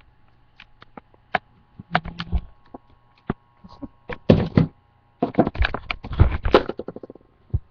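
Irregular knocks and clicks over a faint steady hum, crowding together into a dense run in the second half.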